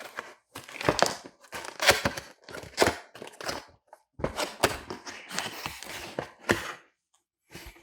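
A cardboard box being opened and its packaging handled: irregular rustling and scraping with several sharp thunks, quieter near the end.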